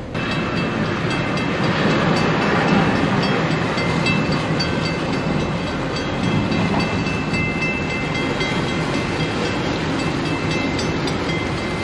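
Motor yacht under way: a steady rumble of its engines and the churning water of its wake at the stern, with a faint high whine that comes and goes.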